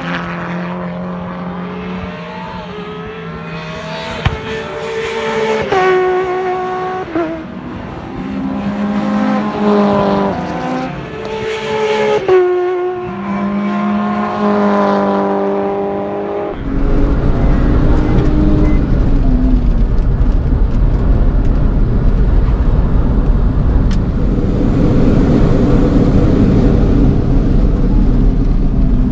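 Race cars passing on a circuit heard from trackside, their engines revving up and down through the gears. About sixteen seconds in, the sound switches abruptly to the loud, steady in-cabin engine and road noise of a BMW E36 being driven hard on track.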